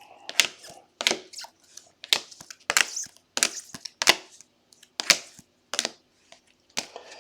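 Trading cards in plastic sleeves and holders being handled and stacked: about a dozen sharp crinkly clicks and rustles, unevenly spaced.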